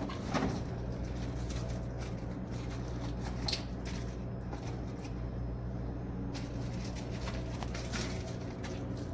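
Snack packages rustling and clicking as they are handled and loaded into a vending machine, with one sharper click about three and a half seconds in, over a steady low hum.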